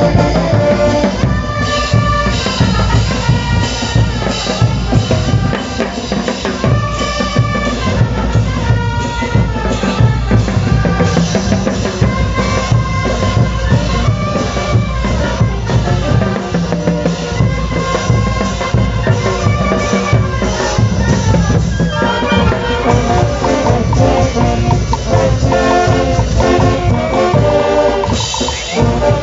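Bolivian brass band playing kullaguada dance music: trumpets and low brass carry the tune over a steady bass drum and snare beat.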